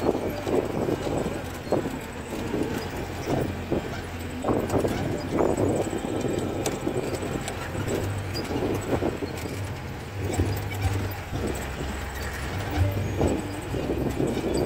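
CJ 550 jeep's engine running at low speed, heard from inside the cabin, while the body and fittings rattle and knock irregularly as it jolts over a rough dirt track.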